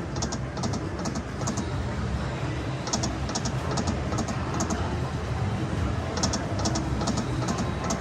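Slot machine clicking out short runs of quick, high ticks in three groups, over a steady low din of the casino floor.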